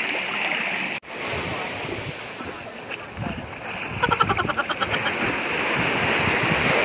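Small waves washing onto a sandy shore, with water splashing around a person moving in the shallows and wind on the microphone. A brief rapid pulsing sound comes about four seconds in.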